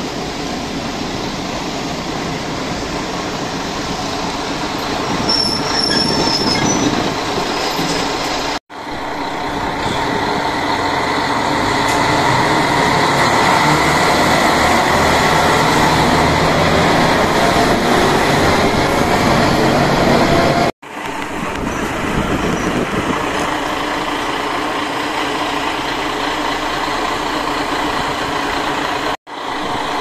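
Diesel railcar running, heard from inside the car: steady engine and wheel noise, with the engine note climbing in pitch through the middle as it pulls away and gathers speed. The sound cuts out for an instant three times.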